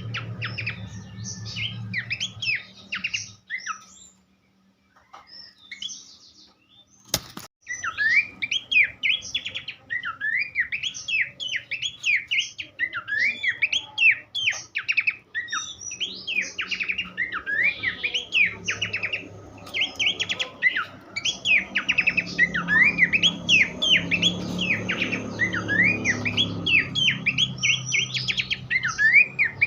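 Pelanduk semak babbler singing a fast, dense stream of sharp chirps and upslurred notes over a low hum. The song breaks off for a few seconds, a single click sounds at about seven seconds, and the chirping resumes.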